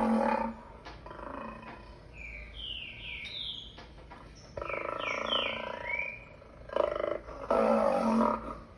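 Lion roaring, played back through computer speakers. One roar ends about half a second in, a longer roar comes in the middle, and two shorter roars come near the end. Small chirping calls fall in the quieter gaps between them.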